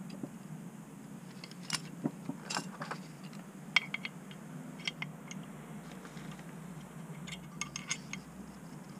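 Royal Enfield Himalayan clutch plates, steel and friction, clinking and scraping against each other and the clutch basket as they are handled and stacked in. A run of light metallic clicks, the sharpest about four seconds in, with a quick cluster near the end.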